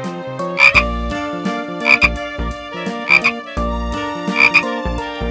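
A frog croaking four times, evenly spaced a little over a second apart, each croak a quick double call, over background music.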